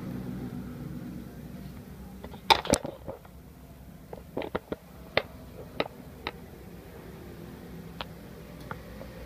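About ten sharp clicks and taps from handling an action camera's side mount and case on a motorcycle helmet. The loudest pair comes about two and a half seconds in, and the rest are scattered over the following few seconds.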